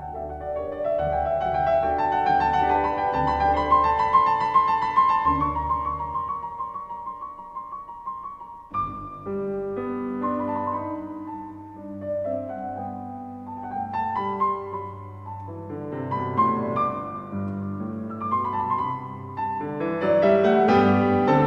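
Instrumental music led by piano. About nine seconds in it breaks off abruptly and a new passage begins.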